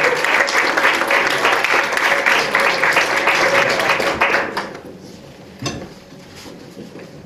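Audience applauding, a dense patter of many hands clapping that stops about four and a half seconds in. A single knock follows about a second later.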